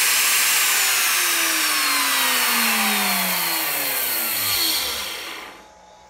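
Bosch 1617 router motor running loud, then switched off: it spins down with a falling whine and fades out near the end.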